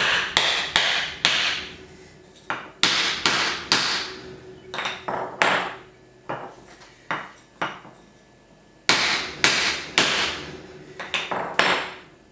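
Claw hammer striking a wooden block set on top of a heated aluminium toothed pulley, driving it down onto a chilled coupler as an interference (shrink) fit. About twenty sharp knocks come in several bursts, each with a brief ring.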